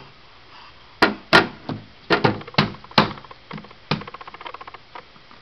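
A series of sharp knocks on a hard, wooden-sounding surface, about eight irregular strikes, followed about four seconds in by a quick run of light rattling clicks.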